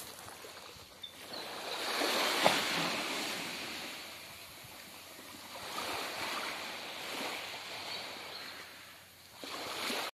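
Small waves washing up onto a dark pebble shore and drawing back, swelling twice, with one short click about two and a half seconds in.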